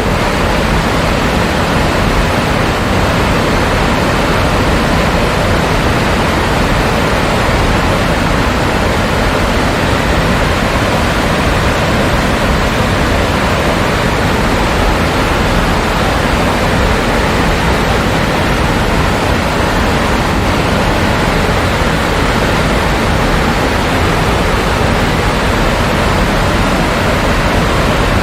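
Waterfall of six tiers: a loud, steady rush of falling water.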